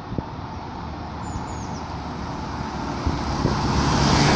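A 2017 Ford Transit van's 2.0-litre EcoBlue four-cylinder diesel and its tyres on asphalt grow steadily louder as the van approaches and passes close by near the end. The tyre hiss rises, and the engine hum comes in strongly for the last second or so.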